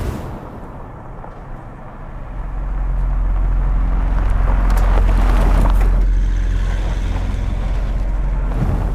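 A deep, steady rumble that swells in about two seconds in and then holds, after a brief whoosh at the very start.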